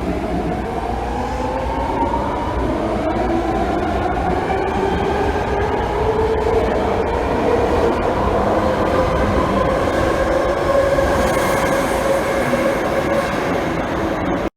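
A steady rumble with a whine that slowly rises in pitch over several seconds, then cuts off abruptly at the end.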